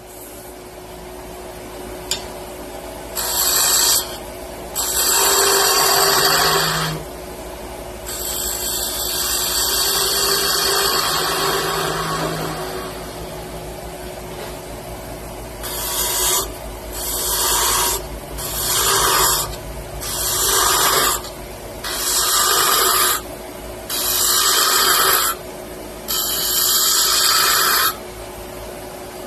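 Wood being worked with an abrasive tool for a wooden top: loud rasping, scraping strokes, irregular at first, then repeating about once a second through the second half, over a faint steady hum.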